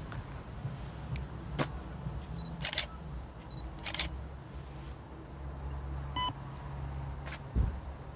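A steady low rumble with a few short scuffs and knocks, and one short electronic beep about six seconds in.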